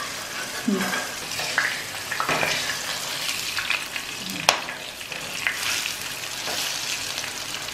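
Battered jackfruit fritters deep-frying in hot coconut oil: a steady sizzle with small crackles as a silicone spatula turns them in the pan. A single sharp click about four and a half seconds in.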